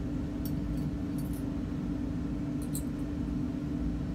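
Steady low hum of laboratory equipment, with a few faint, high-pitched glassy ticks as a glass dropper and test tube are handled.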